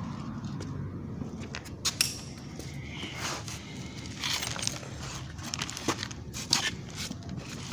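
Irregular clicks, knocks and clinks of small hard objects being handled, over a low steady background noise. The loudest knocks come about two seconds in and again a little past the middle.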